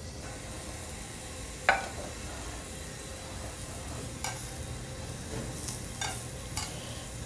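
Chicken tender skewers sizzling in a hot pan, a steady hiss. A sharp metallic clink of cookware comes a little under two seconds in, and several lighter clicks follow later.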